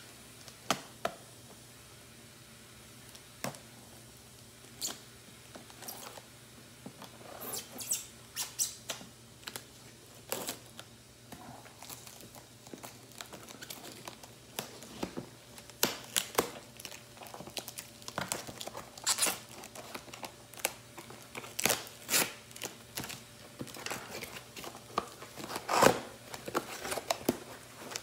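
A cardboard shipping box being handled and opened by hand: irregular taps, scrapes and short tearing and rustling sounds, sparse at first and busier from about seven seconds in.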